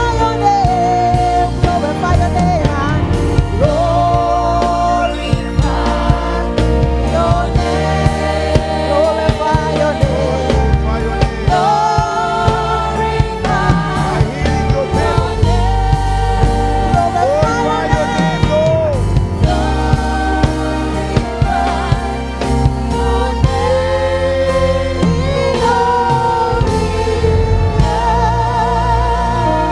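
Gospel worship song: a singing voice holding long, wavering notes over a band with a steady bass line and drum hits.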